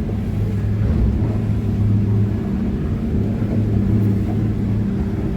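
Boat motor running at a steady, even drone.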